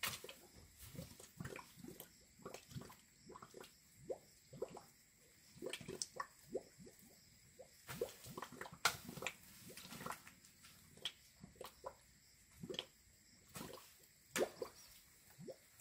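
Hand hoe scraping and chopping through weeds and dry, hard soil in irregular strokes, about one or two a second.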